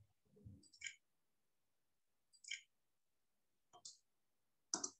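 A few faint computer mouse clicks, a second or more apart, against near silence, as keys are picked one by one on an on-screen keyboard.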